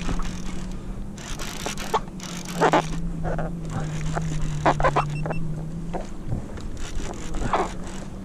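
Kayak paddle strokes splashing in the sea several times over a steady low boat-engine drone that drops slightly in pitch partway through.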